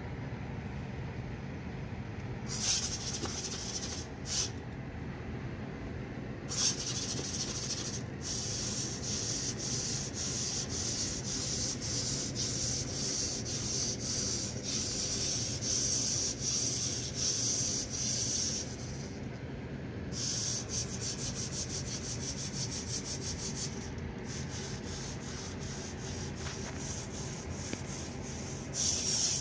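Hobby servos in the legs of a 3D-printed SpotMicro quadruped robot dog buzzing and whirring as it moves through programmed poses. It starts as a few short bursts, then becomes a near-continuous high-pitched stuttering buzz broken by a few short pauses.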